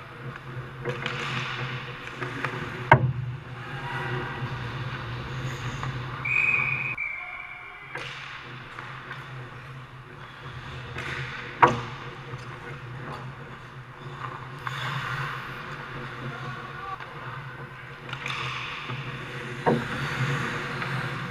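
Ice hockey play heard from behind the net: skates scraping the ice and three sharp cracks of the puck striking sticks, pads or boards, over a steady low hum. A short high tone sounds about six seconds in.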